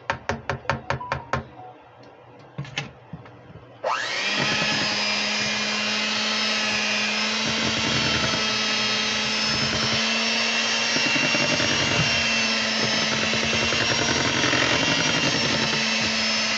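A quick run of about eight sharp taps, then two more, before an electric hand mixer starts about four seconds in with a rising whine. It then runs steadily, its beaters churning thick cake batter in a stainless steel bowl.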